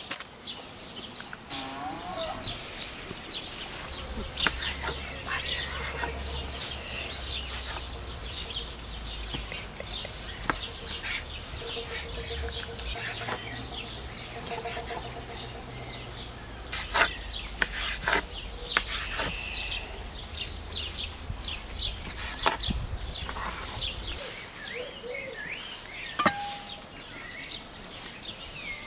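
Small birds chirping throughout, with a few sharp clicks and knocks, over a low steady rumble that stops about three-quarters of the way through.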